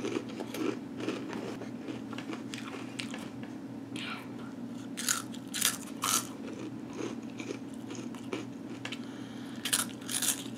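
Mouth chewing crunchy Flamin' Hot Cheetos: irregular crisp crunches, loudest in a cluster about halfway through and again near the end, over a steady low hum.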